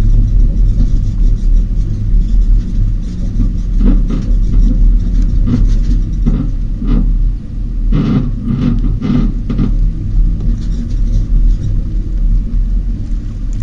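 Tow vehicle's engine running as it backs a boat trailer down a launch ramp, heard as a loud steady low rumble, with a few brief knocks and rattles between about four and nine seconds in.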